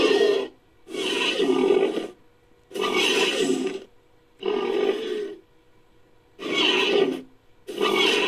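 Designed creature sound effect: a run of about six short, rough roars, each about a second long, separated by brief silences. The roars are made from edited animal and monster recordings.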